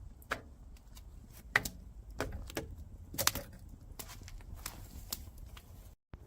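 Irregular sharp clicks and small knocks, about a dozen spread unevenly, over a low rumble; the sound drops out abruptly for a moment near the end.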